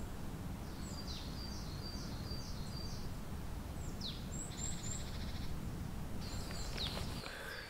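Wild songbirds singing in a forest: repeated high down-slurred whistles and short runs of notes, with a quick trill about halfway through. A steady low rumble sits underneath and stops near the end.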